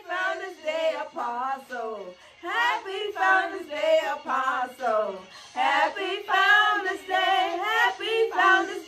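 Three women singing a song together in short phrases, their voices unaccompanied.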